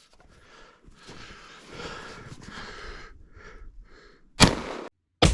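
12-gauge shotgun fired once about four seconds in, a sharp loud blast with a short echoing tail. A second loud bang with a heavy low thump follows right at the end, after a brief dropout in the sound.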